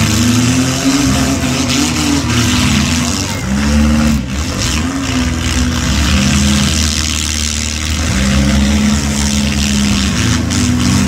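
Demolition derby car engines revving hard, their pitch climbing and falling again and again, over a steady hiss of noise.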